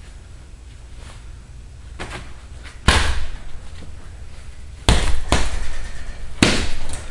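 Hanging heavy punching bag being punched: four hard hits, the first about three seconds in and two close together near the middle, after a couple of faint taps.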